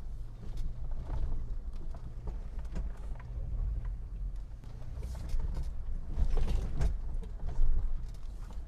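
Mitsubishi Montero V43 crawling slowly over uneven cross-axle ground: a steady low engine rumble with scattered light creaks and clicks from the chassis. It grows louder for a couple of seconds past the middle. The owner counts the chassis as free of any abnormal noise.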